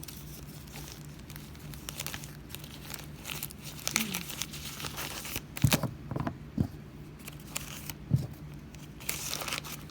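Plastic packaging crinkling and rustling as small items are handled and packed back into a bag, with a few sharper knocks and taps.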